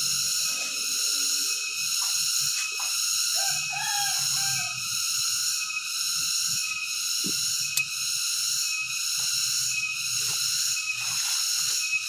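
A steady, high insect drone pulsing in an even rhythm, with rustling and snapping of leaves and twigs as someone pushes through undergrowth, and a short bird call about four seconds in.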